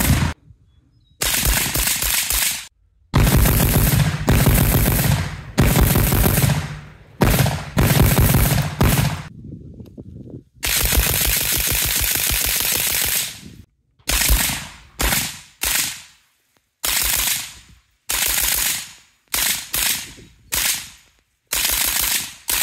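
Arsenal SAM7K-55 AK-pattern firearm firing rapid strings of shots. The first half holds long strings of one to three seconds; the second half holds a run of short bursts and quick groups, each cut off sharply.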